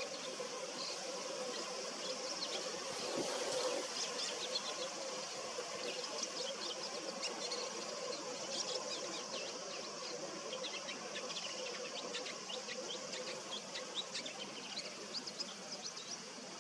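Male bull-headed shrike's subsong: a rambling, irregular stream of short chirps and twitters, with the notes coming thicker in the second half.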